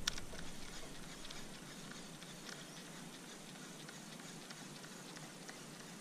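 Faint, irregular pattering of water dripping off a kayak paddle blade as it is worked, with one sharp click right at the start.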